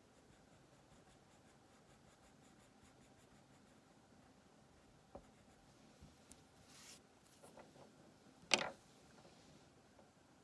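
Wax crayon scratching faintly on paper in quick, even strokes. Then, as the colouring stops, a small click, a short rustle and one sharp knock on the wooden table about eight seconds in, the loudest sound.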